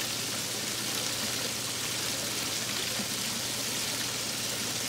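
Steady running water from a backyard water-feature trough, an even unbroken rush.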